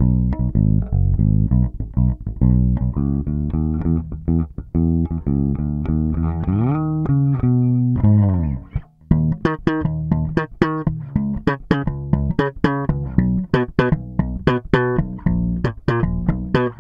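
Epiphone Thunderbird Classic electric bass with passive Gibson pickups, played fingerstyle with a neutral (flat) tone setting: a run of plucked notes, a slide up and back down about seven seconds in, a short break near nine seconds, then notes with sharper attacks.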